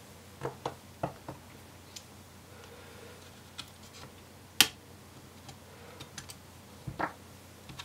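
Light, scattered clicks and taps of fingers prying at the clip-on covers over a Lenovo Yoga 530 laptop's memory slots, with one sharp click a little past halfway.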